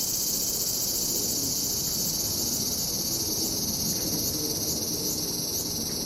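Cicadas droning steadily in a dense, high-pitched summer chorus.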